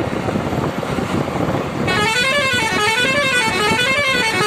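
Over steady road noise, a truck's musical horn starts about two seconds in and plays a warbling tune, its pitch rising and falling over and over.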